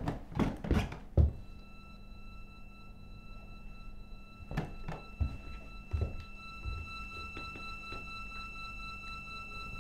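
A few heavy thuds in the first second or so, then four slow footsteps of heeled boots on a wooden floor about halfway through. A high steady tone with a music-like quality comes in about a second and a half in and holds underneath.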